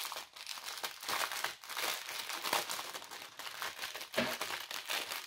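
A small clear plastic bag of diamond-painting rhinestones crinkling and rustling as it is handled and opened, with a run of irregular crackles.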